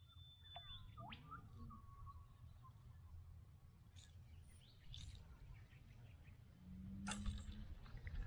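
Faint wild bird calls: a few thin whistles and short chirps, over a steady low rumble. A brief sharp knock comes about seven seconds in.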